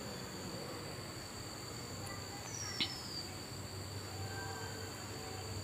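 Faint room tone carrying a steady high-pitched whine and a low hum, with one soft click just under three seconds in.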